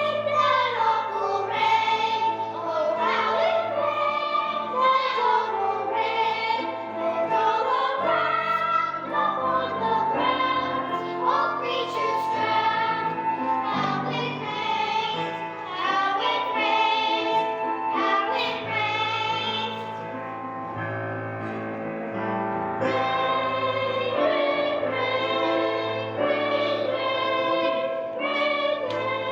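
Children's choir singing a song over an instrumental backing with steady bass notes.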